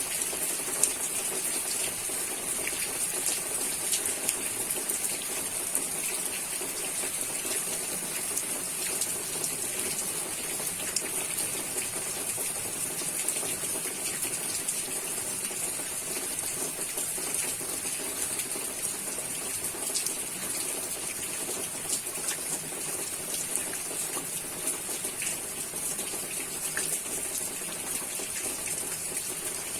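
Steady rainfall: an even, unbroken hiss of rain with scattered drop ticks.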